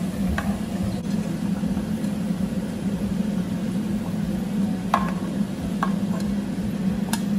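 Fried onions being scooped out of hot ghee in a nonstick pan with a metal spoon: a few light clicks and taps of the spoon on the pan, over a steady low hum and faint sizzling.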